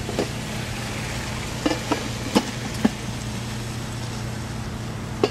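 A steady low hum over a hiss, with a handful of short clicks and knocks, most of them bunched between about one and a half and three seconds in.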